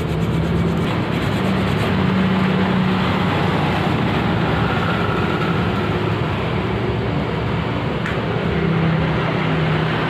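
A machine running steadily, with a low hum under a constant noisy wash.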